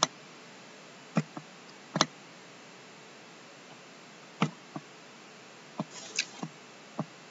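Computer mouse clicking: about nine short, sharp clicks at irregular intervals, a few close together near the end.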